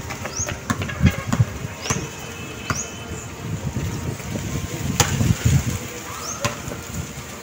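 A basketball bouncing now and then on an outdoor court, giving a few sharp, irregular thuds over a low rumble. Short high rising chirps repeat through it.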